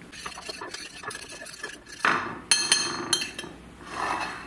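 Metal fork stirring a flour and cornmeal breading in a ceramic baking dish: light ticking at first, then a quick run of sharp clinks of the fork against the dish about halfway through.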